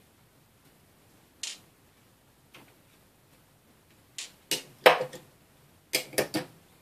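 Small laptop screws clicking and clattering on a tabletop as they are set down: a couple of single clicks, then a quick run of clicks about four seconds in, and a few more near the end.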